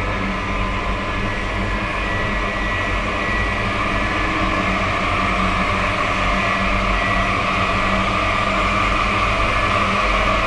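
Horror ambience sound effect: a steady, dense rumbling drone with a few faint held tones, slowly growing a little louder.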